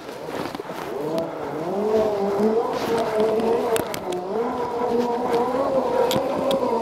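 Segway's electric drive whining while riding off-road, its pitch rising and falling with speed, with scattered knocks and rattles from bumps in the ground.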